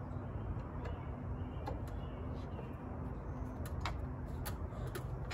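Small bolts on a steel strut's retrofit bracket being tightened with a wrench: a handful of light, irregular metal clicks over a steady low background noise.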